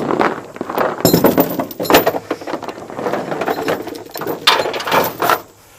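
Footsteps crunching and rustling through dry weeds and brush, with many sharp cracks and snaps, stopping about five and a half seconds in.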